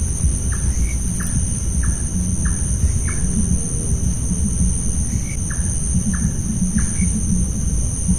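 A night bird calling a series of short, sharp notes, about two a second, in two runs with a pause between, over a steady high-pitched insect drone. A loud low rumble runs underneath.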